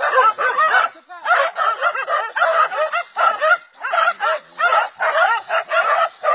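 A pack of hunting dogs barking and yelping in rapid, overlapping calls as they bay and attack a cornered wild boar.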